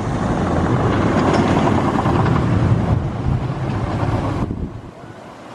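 Wooden roller coaster train running along its steel-topped wooden track, a loud steady rumble that drops off sharply about four and a half seconds in.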